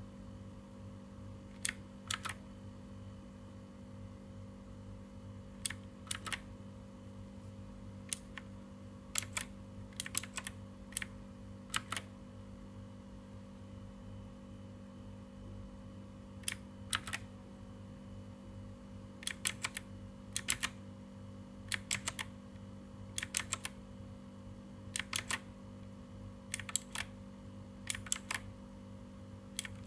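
Ajazz AK33 mechanical keyboard keys pressed one or two at a time, sharp clicks in pairs and small clusters with pauses of a few seconds between them. A steady low hum lies underneath.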